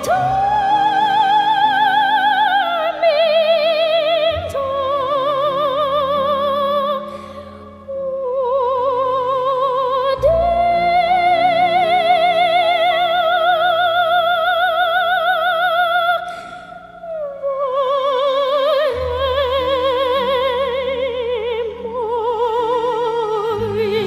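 Background music: operatic singing, a high voice holding long notes with wide vibrato over a soft accompaniment, in three long phrases with two short breaks between them.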